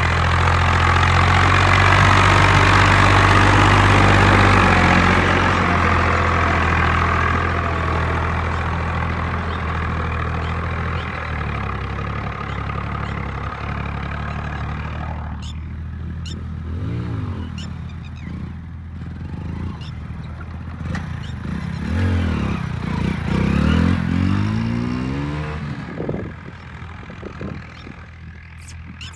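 Swaraj 744 tractor's diesel engine running under load as it drags a tillage implement over stony ground. It is loudest for the first few seconds as it passes close, then fades as it moves off. Toward the end come a few rising-and-falling pitched sweeps and scattered clicks.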